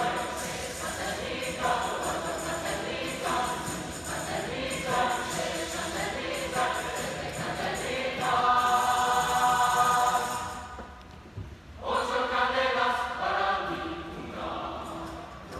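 Choir singing. A little past halfway it swells into a loud held chord, breaks off for about a second, then comes back in.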